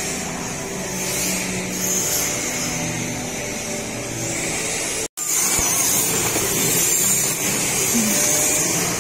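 Small electric motors of RC drift cars whirring, swelling and fading as the cars speed up and slow down around the track, over a steady background hum. The sound cuts out for an instant about five seconds in.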